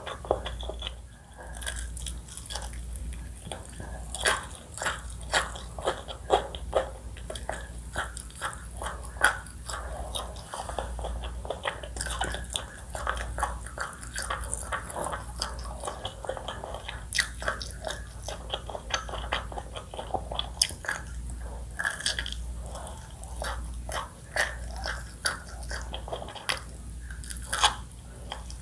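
A person chewing and biting into crunchy food close to the microphone, with many irregular crisp crunches and wet chewing sounds throughout.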